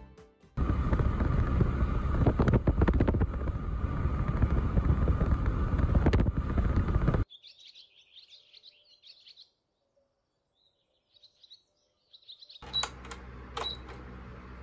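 Several seconds of loud, dense background noise with clattering, then a quiet stretch with faint high chirps. Near the end, an electric fan's control panel beeps twice as its buttons are pressed, over the fan's steady hum.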